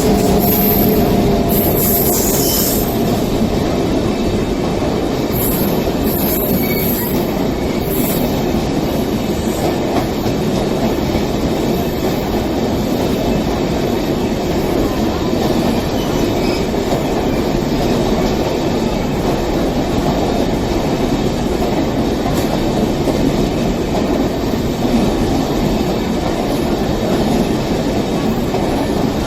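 Rajdhani Express passenger coaches rolling past on electrified track: a steady, loud rush of steel wheels on rails with rail-joint clatter, unbroken for the whole stretch.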